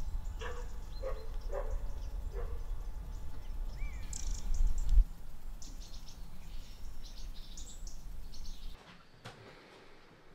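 Birds chirping outdoors: scattered short calls and one brief whistled note near the middle, over a low background rumble that drops away near the end.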